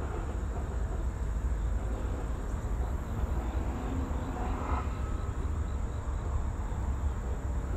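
Outdoor ambience at an open hilltop: a steady low rumble with a faint background haze and no distinct events.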